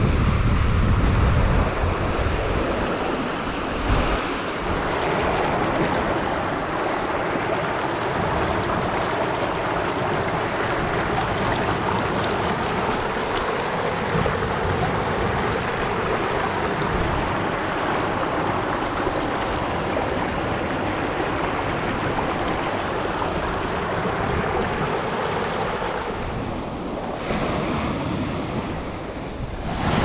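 Shallow river water rushing and splashing over stones in a steady wash, with wind buffeting the microphone in the first couple of seconds. Near the end, sea waves break and wash up a pebble beach.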